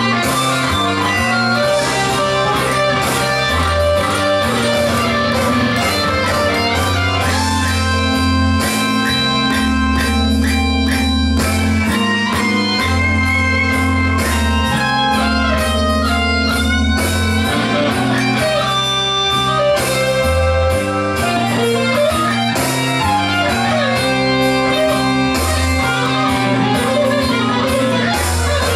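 Stratocaster-style electric guitar played through an amplifier: blues lead lines with several string bends about halfway through, over held low bass notes.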